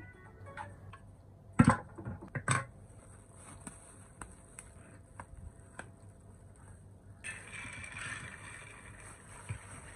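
Two loud knocks about a second and a half in, with small clicks after them. Then, from about seven seconds in, a plastic bag rustles as cooked jollof rice is tipped from it into a metal pot.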